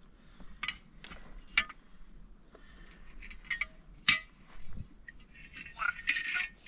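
Sharp knocks and clinks of hard objects, about six, irregularly spaced.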